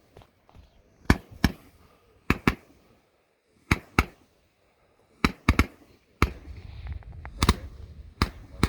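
Retro consumer firework firing a string of sharp pops at irregular intervals, many in close pairs. A low rumble builds from about six seconds in.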